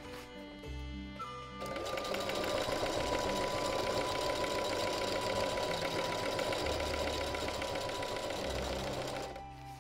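Electric domestic sewing machine stitching at a fast, even rate as binding tape is sewn onto tent fabric. It starts about a second and a half in and stops just before the end. Background music plays throughout.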